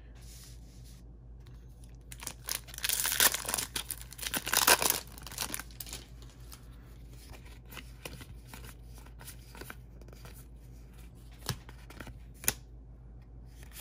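Foil wrapper of a Magic: The Gathering Core 2021 collector booster pack torn open and crinkled, loudest about two to five seconds in, which is the next pack being opened. A couple of short, light clicks of card handling follow near the end.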